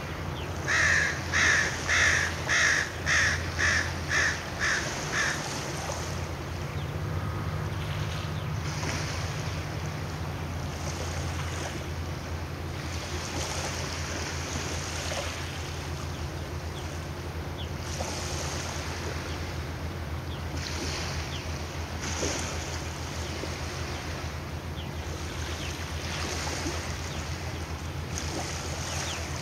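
A bird giving a run of about nine harsh calls, about two a second, fading toward the end, over the steady low hum of a ferry's engine and wind-and-water noise.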